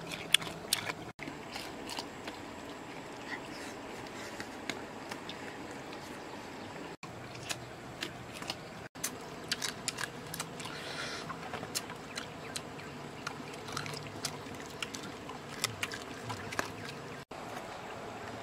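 Dogs chewing and licking fried duck meat off banana leaves: many small, scattered clicks and crunches over a steady background hiss.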